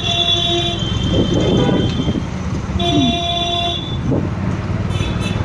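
Vehicle horn blowing a steady held note, cutting off under a second in and sounding again for about a second near the middle, over a steady low rumble of street traffic.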